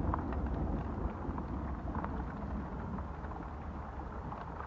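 Heavy rain falling, with scattered ticks of drops over a low rumble that slowly fades.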